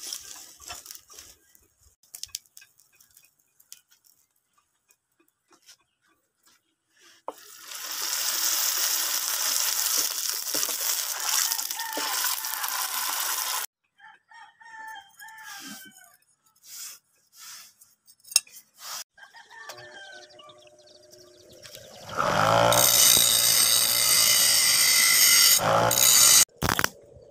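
A hot steel blade hisses steadily in quench oil for about six seconds. A rooster crows a few times after that. Near the end, the loudest sound: a mounted electric grinder spins up into a steady whine and grinds the blade.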